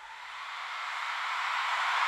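Dental chair rising: a steady hiss that swells louder.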